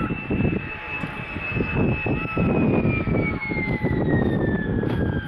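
A de Havilland Vampire jet comes in to land, its single Goblin turbojet whining over a heavy rumble. From about two seconds in, the whine falls steadily in pitch as the jet sweeps down onto the runway.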